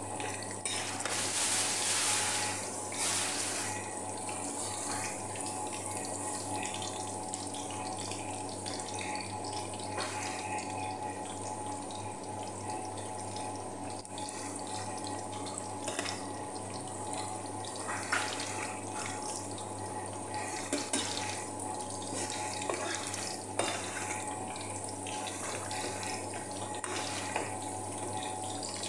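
Zucchini, carrot and squash slices frying in a pan of hot oil: a steady sizzle, with a few short taps and scrapes of a metal spoon against the pan.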